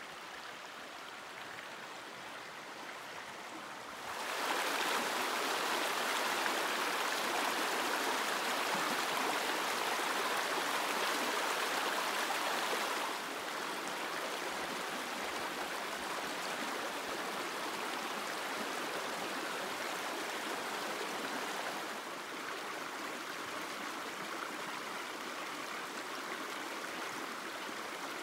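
Small rocky creek running steadily, a continuous rush of water. It jumps louder about four seconds in and steps down twice later.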